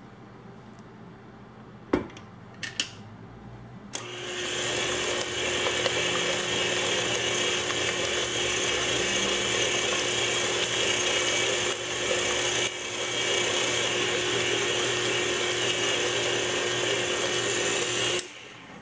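KitchenAid tilt-head stand mixer's motor running steadily, its flat beater mixing thick banana bread batter in a steel bowl. It switches on about four seconds in, after a knock and a couple of clicks, and stops shortly before the end.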